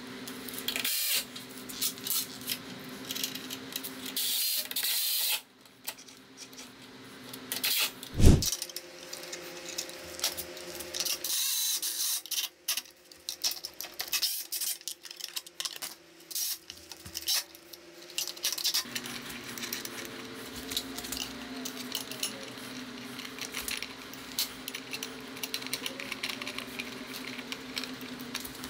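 Assembly work on a mini bike: clicks, taps and clatter of hand tools and metal parts, with short runs of a cordless driver. There is one sharp, loud knock about eight seconds in, and a steady low hum comes in about two-thirds of the way through.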